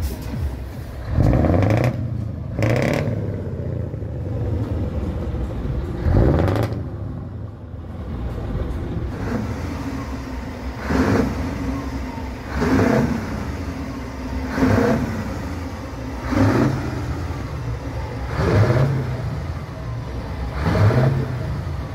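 Scania truck's diesel engine idling and revved again and again, nine short revs that each rise and fall in pitch, the later ones about every two seconds.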